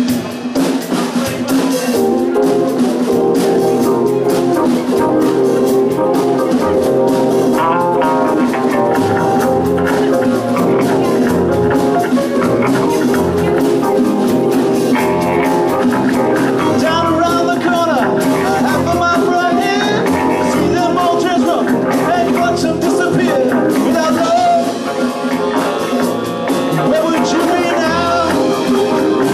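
A band playing a rock song with drums, guitar and singing.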